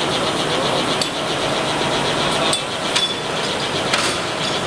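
Metal lathe running steadily, with several sharp metallic clicks as its control levers are shifted.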